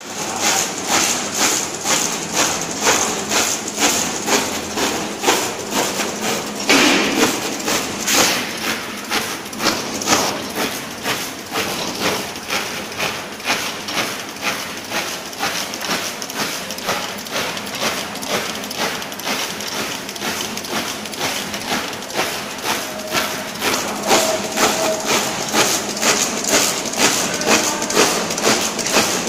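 Automatic label printing machine running, its press cycling in a steady rhythm of sharp mechanical knocks, about two to three a second.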